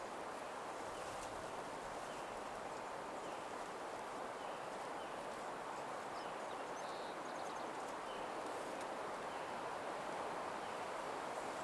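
Nature soundscape: a steady, even rushing hiss, with a few faint, short bird chirps over it.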